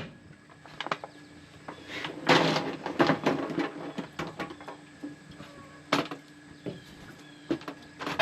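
Scattered knocks and clinks of canning jars and cookware being handled, with a busier clatter about two to three and a half seconds in.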